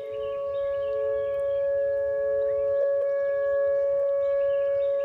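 Outdoor tornado warning siren sounding a steady tone with two pitches, held level without rising or falling.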